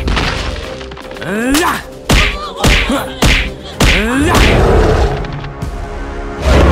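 Cartoon fight sound effects: a quick run of about five whacks and thuds, some with short rising squeals, followed by a noisy rush.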